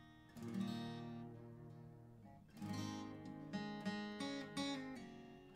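Acoustic guitar being strummed: one chord rings about half a second in, a second comes a little before the middle, then several quicker strums and picked notes follow.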